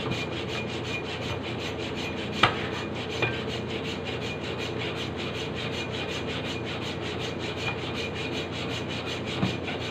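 Hand saw cutting back and forth through a large plastic-wrapped chunk of meat, a steady run of quick, even strokes. A single sharp click comes about two and a half seconds in.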